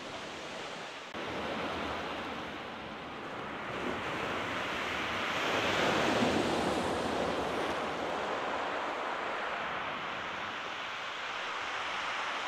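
Sea waves breaking and washing up the beach. The surf swells to its loudest about halfway through, then eases off.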